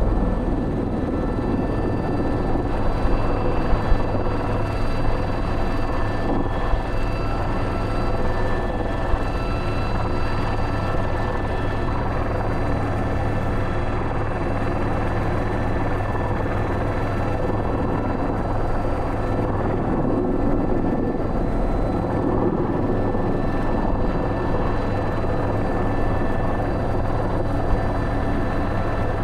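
Airbus H125 helicopter in flight, its single turbine engine and rotors giving a steady drone with constant high whining tones. A few brief louder knocks come a few seconds in.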